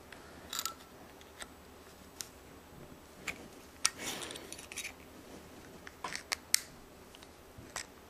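Scattered light metallic clicks and scrapes as the tip of a straight-edge screwdriver works a coiled steel spiral lock clip around into its groove in a piston's wrist-pin bore, with a slightly longer scrape about four seconds in.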